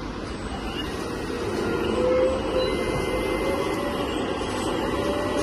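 Motors and hydraulic pump of a 1:14 scale hydraulic RC bulldozer running, a steady mechanical whir. About two seconds in, a whine rises slightly in pitch and the sound grows louder.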